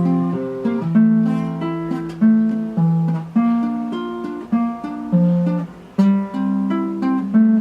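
Acoustic guitar strumming chords, a new chord struck about once a second and left to ring, with no singing over it.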